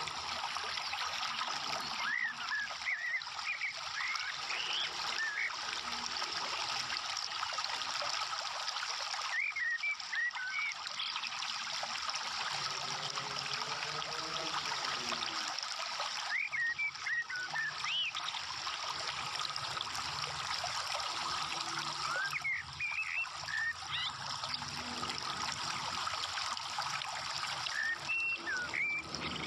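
Steady trickling, water-like noise, with short runs of high chirps about every six seconds.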